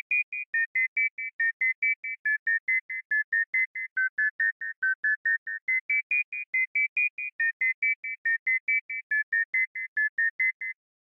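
Instrumental music: short, high keyboard chords repeated evenly about six times a second, the melody stepping up and down, with no bass or drums. It stops abruptly shortly before the end.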